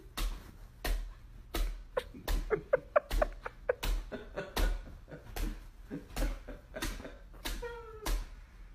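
A large dog bouncing on a mattress: a string of soft thumps, about two a second, as it jumps around on the bed.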